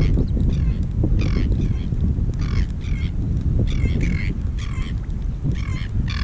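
Wind buffeting the microphone, with a short squeaky chirp repeating about twice a second.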